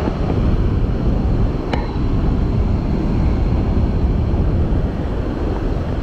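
Steady roar of a large waterfall in full flow, heard close up in its heavy spray, with wind buffeting the microphone.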